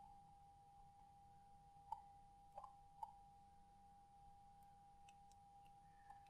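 Near silence: a faint steady hum with a few soft computer mouse clicks, three of them between two and three seconds in and one near the end.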